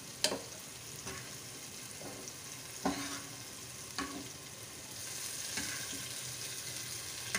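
Spiced yogurt masala with chicken pieces sizzling steadily as it fries in a metal pot, with a spatula stirring and knocking sharply against the pot four times.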